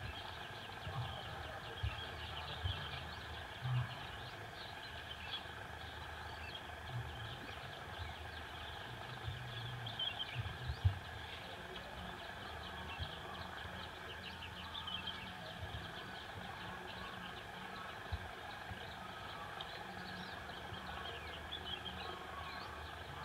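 Outdoor field ambience: a steady, high chirping chorus, with irregular low thumps and rumbles, most often in the first half.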